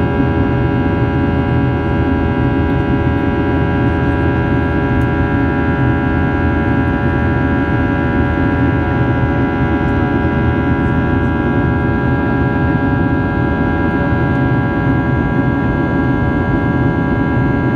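Boeing 737-800's CFM56-7B turbofan engines heard from inside the passenger cabin: a steady rushing noise with many steady humming tones layered over it.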